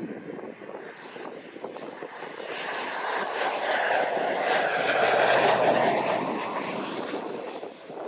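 Pilatus PC-12's single PT6A turboprop engine and propeller passing close on landing approach. The sound swells to its loudest about five seconds in and then fades, with a thin high turbine whine that slowly drops in pitch.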